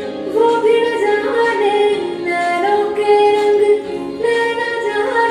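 Bollywood film song playing: a woman singing a melody of held notes that glide between pitches.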